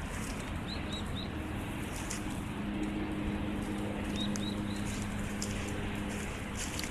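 Two brief runs of small bird chirps, each about three quick calls, over a steady outdoor rush. A low steady hum comes in about two seconds in.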